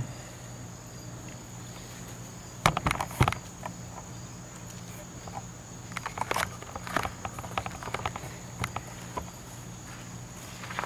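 Crickets chirring steadily outdoors. A quick cluster of sharp knocks comes about three seconds in, and lighter scattered clicks follow later.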